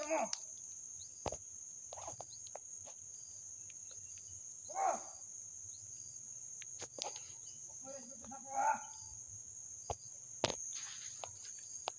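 Steady high-pitched drone of an insect chorus in tropical undergrowth. Twice it is broken by a short burst of voice, and a few sharp snaps and clicks fall in between.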